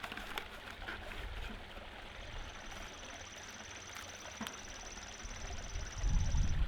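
Outdoor wind noise on the microphone, a steady hiss that turns into a louder low buffeting near the end, with a thin high-pitched steady trill through the middle.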